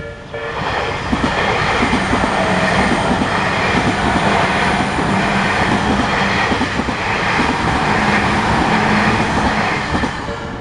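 Tobu Isesaki Line train passing over a level crossing: a loud, steady rolling rush with the clatter of wheels over the rail joints. For its first half second the crossing's repeating electronic alarm is heard, then the train noise drowns it out.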